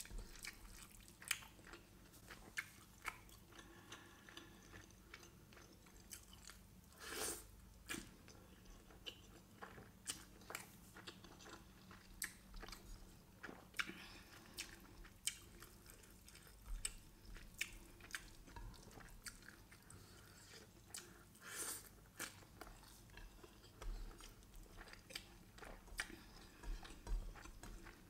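Faint close-miked chewing and mouth clicks of a person eating chicken biryani by hand, with two longer, louder sounds about 7 and 22 seconds in.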